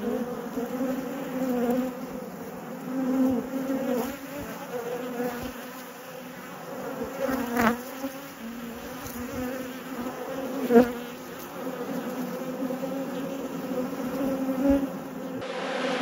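Honeybees buzzing on an open brood frame: a steady hum of many wings, with a couple of louder buzzes as single bees fly close past, about eight and eleven seconds in.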